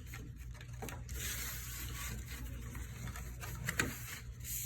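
Cardboard being folded and pressed by hand: scraping and rustling of the board, with a few sharp creasing clicks.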